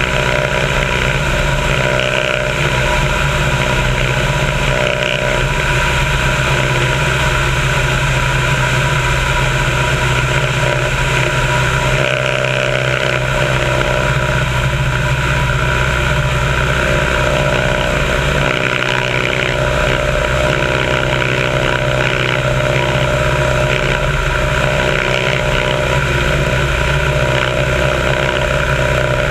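Biplane's piston engine running steadily in cruise flight, mixed with heavy wind rush over the wing-mounted camera's microphone. It holds an even, unbroken drone with no change in pitch.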